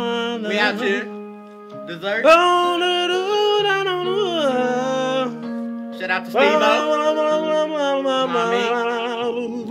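Singing in slow, drawn-out phrases with long wavering held notes, over steady lower sustained notes, with short breaks about a second and a half in and near six seconds.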